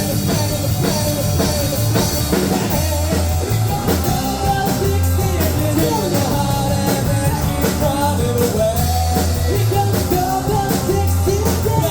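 Live rock band playing a mid-song section: drum kit keeping a steady beat and bass holding low notes, with a wavering melody line on top.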